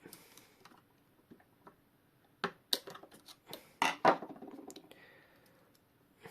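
Small metal clock-movement parts clicking and knocking against a tool as a part is worked into place, a cluster of sharp clicks from about two and a half to four seconds in, the loudest near the end of the cluster.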